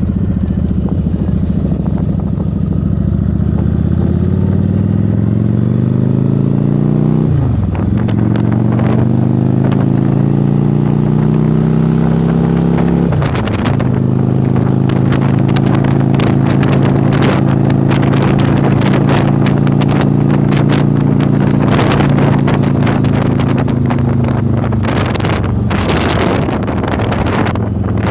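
Yamaha Virago 1100 V-twin motorcycle engine pulling away and accelerating, its pitch climbing, dropping at two upshifts about 7 and 13 seconds in, then cruising steadily. Heavy wind buffeting on the microphone grows as speed builds.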